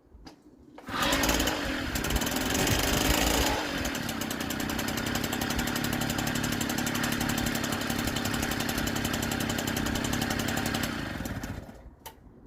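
The NSU Quickly moped's small two-stroke engine running after its rebuild, louder for the first couple of seconds, then settling to a steady run before it stops near the end.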